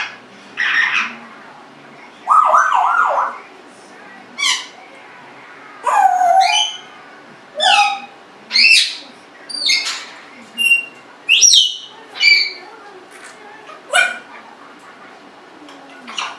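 Congo African grey parrot whistling and squawking: a dozen or so short calls, each a second or less, many sliding up or down in pitch, with a wavering warble about two seconds in.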